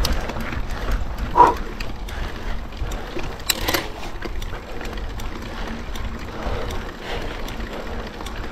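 Hardtail mountain bike ridden over a bumpy dirt trail, heard from a chest-mounted camera: steady tyre rumble and rattling of the bike over the bumps, with a couple of sharper knocks, the loudest about a second and a half in.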